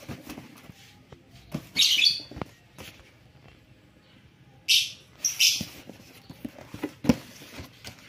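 Hands rubbing and scraping over a taped cardboard box: a few short brushing scrapes and scattered light knocks.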